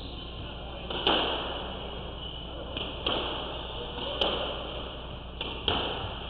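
Squash rally: the ball cracking off rackets and the court walls in sharp hits about a second apart, each with a short echo. The loudest hit comes about a second in, and a quick double hit follows near the end.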